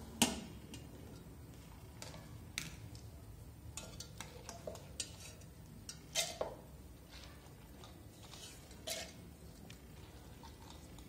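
A steel spoon scooping soaked urad dal out of a steel bowl and tipping it into a steel mixer-grinder jar: irregular clinks and scrapes of metal on metal, with the loudest knocks just after the start and about six and nine seconds in.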